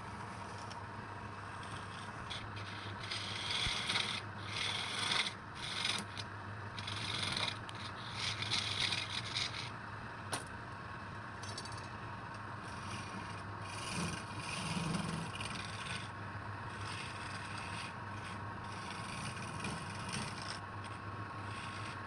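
Wood lathe running with a steady hum while a tool rubs against the spinning wood in repeated rough, scraping passes, heaviest in the first half, with a sharp click about ten seconds in.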